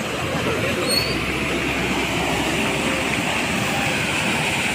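Brown floodwater rushing across a submerged road and pouring over its edge, a steady rushing noise.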